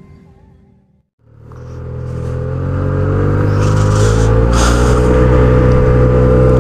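Yamaha TMAX maxi-scooter's parallel-twin engine coming in after a moment of silence about a second in, growing louder and then running steadily, its pitch creeping up as the scooter gathers speed.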